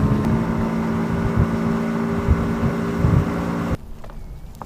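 Outboard motor of a fishing boat running steadily under way, with wind and water noise; it cuts off suddenly near the end.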